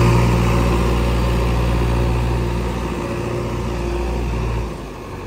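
Heavy diesel engine of a construction vehicle running steadily, with a deep hum, then dropping off sharply about three quarters of the way through.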